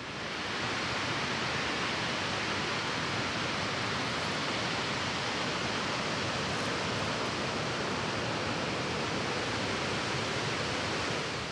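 Steady rush of white water from the Genesee River tumbling over rapids in the gorge below. It swells in during the first second and cuts off at the end.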